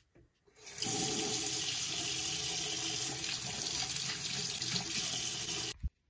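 Bathroom sink faucet turned on, water running steadily into the basin from about a second in, then cutting off suddenly near the end.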